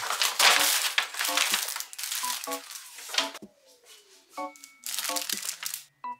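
Kraft paper mail envelope and its bubble-wrap and plastic packaging crinkling as they are handled and pulled apart, loudest in the first three seconds and again briefly about five seconds in. Soft background music with light melodic notes plays underneath.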